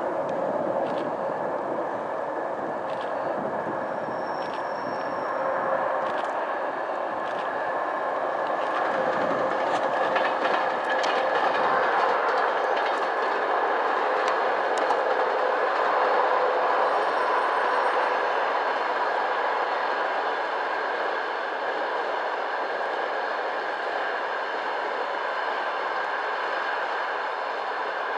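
A passenger train hauled by a ChS4 electric locomotive rolling past at speed: a steady rumble of the coaches' wheels, with repeated clicks over the rail joints through the first half.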